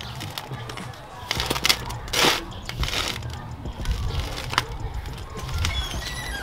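A bare hand kneading and squeezing puff-puff dough of flour and margarine in a large stainless-steel bowl: irregular squelching and scraping strokes against the metal, busiest between about one and three seconds in.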